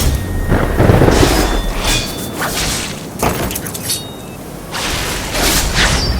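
Cinematic impact sound effects layered over a song in a sound-effect-heavy remix: a deep boom about a second in, then a run of crashes and shattering-glass hits.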